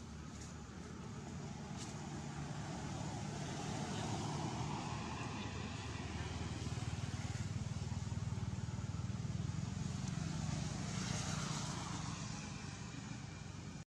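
Engine hum of a motor vehicle passing, growing louder over several seconds and fading again near the end.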